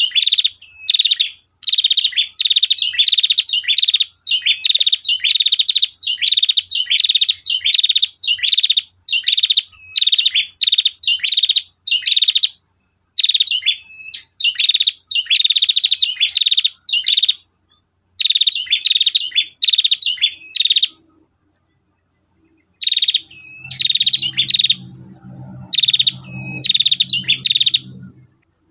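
Female prinia (prenjak betina) giving its long 'tir' call: runs of short notes in rapid trills, repeated over and over. The calling breaks off for about two seconds roughly three quarters of the way through, then resumes.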